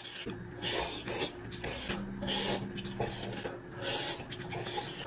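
A person slurping instant ramen noodles from a cup: a run of loud sucking slurps with breaths in between.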